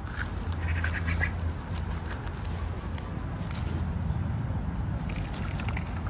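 Ducks calling in short bursts, mostly in the first second and a half and again around four seconds in, over a steady low rumble.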